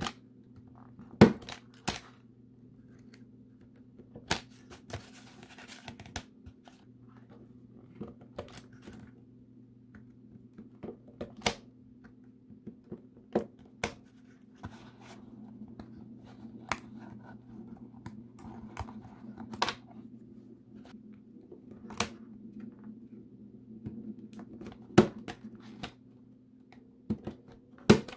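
Craft knife blade cutting and popping the small tabs that hold laser-cut wood parts in their sheet: about a dozen sharp clicks and snaps spread irregularly, roughly one every two seconds, with light scratching of the blade on the wood between them.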